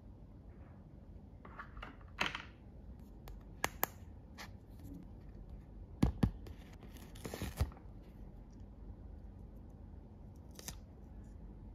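Light clicks and taps of plastic toy-kitchen parts and a paper sticker sheet being handled, with two sharp clicks about six seconds in. Then a paper sticker is peeled off its backing sheet with a short tearing sound, followed by one more click near the end.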